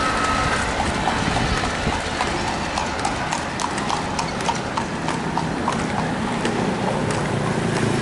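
Horse hooves clip-clopping on the road in a quick run of sharp strikes, clearest from about three seconds in.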